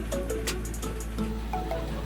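Background music with a steady beat and short melodic notes.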